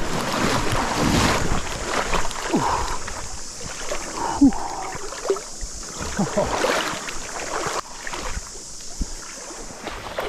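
Splashing and sloshing of a person wading quickly through a shallow, rocky river, with many short splashes. A steady high drone of cicadas runs behind and stops shortly before the end.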